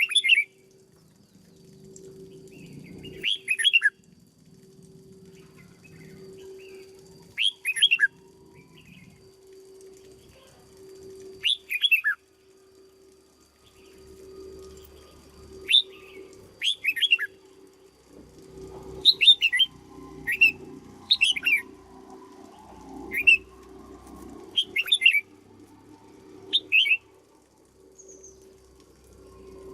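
Red-whiskered bulbul singing short, quick falling phrases, a few seconds apart at first and coming more often in the second half. A steady low hum runs underneath.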